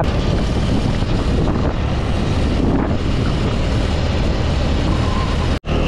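Wind rushing over the microphone of a Benelli TNT 25 motorcycle in motion, with the engine's low drone underneath. The sound drops out for an instant near the end.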